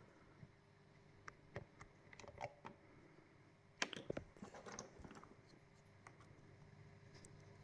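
Faint, scattered small clicks of a tension wrench and pick working inside an Ezcurra SEA 3 lock, probing the pins to find which are binding. The clicks come in small irregular clusters, the loudest about four seconds in.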